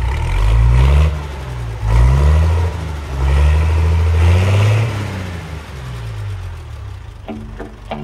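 Engine of large farm harvesting machinery revving up and dropping back several times, its pitch rising and falling. Guitar music comes in near the end.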